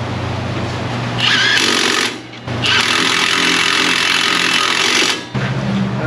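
Impact wrench tightening a truck's brake rotor bolts, working across from one bolt to the opposite one: two hammering runs, a short one about a second in and a longer one of nearly three seconds, after it runs lightly at first.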